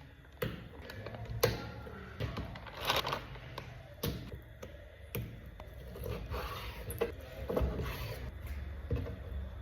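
Kitchen work sounds: irregular knocks, clicks and scrapes of utensils and cookware being handled, over a low steady hum.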